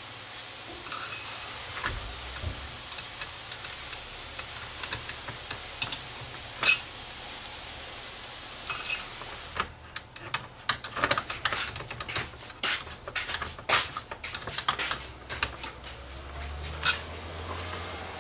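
Screwdriver driving screws back into a VCR's metal tape-mechanism chassis: scattered small clicks and ticks over a steady hiss, with one sharp click about six and a half seconds in, then a dense, irregular run of clicks and scrapes through the second half.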